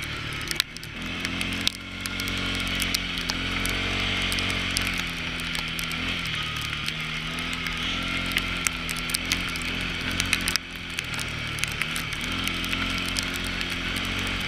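CFMoto CForce ATV engine running under way, its pitch rising and falling several times as the throttle is worked, with many sharp ticks over it.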